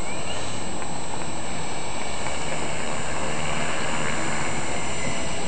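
Radio-controlled model Yak aerobatic plane's motor and propeller running steadily as it taxis on grass.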